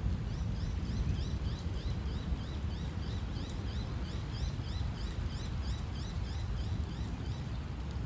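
Steady low rumble of heavy storm rain, with a bird giving a long run of short rising chirps, about three a second, that stops near the end.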